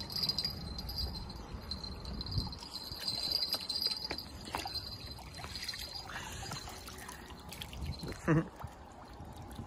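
Shallow lake water splashing and trickling against shoreline rocks as a hooked catfish is brought in to the landing net, with small knocks of handling. A steady high-pitched tone runs along and stops about six seconds in.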